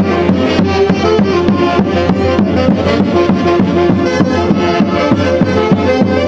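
An Andean orquesta típica playing dance music: several melodic instruments hold and move between notes over a steady, quick drum beat.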